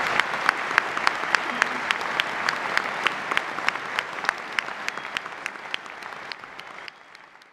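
Audience applauding, with one nearby pair of hands giving sharp, distinct claps about three or four a second over the general clapping. The applause gradually fades away.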